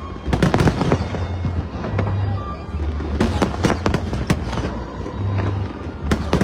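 Aerial fireworks bursting in quick succession: clusters of sharp bangs and crackles about half a second in, around three to four seconds in, and again near the end.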